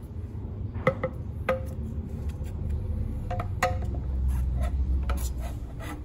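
Metal paint tin being pried open with a metal tool: sharp metallic clicks and taps on the rim and lid, a few of them ringing briefly, over the low rumble of handling.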